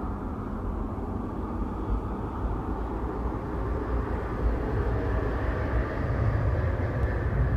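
A steady low rumble, swelling a little louder after a few seconds.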